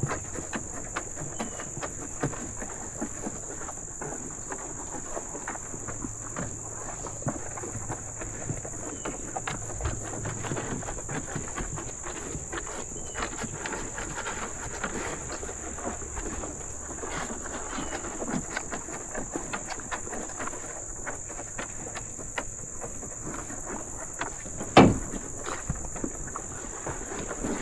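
Cattle eating sweet feed at a trough: a steady run of scattered crunching and shuffling clicks, over a constant high insect drone, with one loud knock about 25 seconds in.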